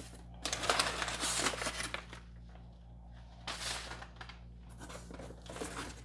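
Crumpled kraft packing paper crinkling and rustling as it is pulled out of a cardboard box, with the box's flaps being pushed open. The rustling is loudest in the first two seconds, with shorter bursts in the middle and near the end.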